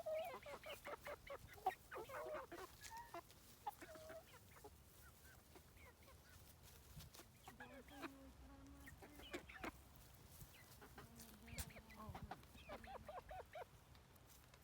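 Young chickens, about twelve weeks old, calling faintly in scattered bursts of short peeps and soft clucks.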